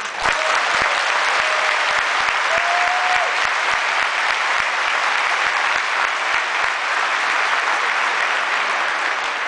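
Large hall audience applauding, breaking out suddenly into steady, loud clapping that eases slightly near the end.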